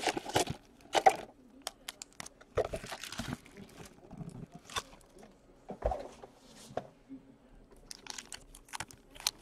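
Foil-wrapped hockey card packs crinkling and rustling as they are tipped out of cardboard blaster boxes and spread by hand on a table, with irregular clicks and taps. The handling gets busier near the end.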